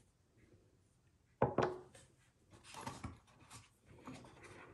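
Small parts and packaging handled on a wooden tabletop: one sharp knock about a second and a half in, then a few soft clicks and rubbing sounds.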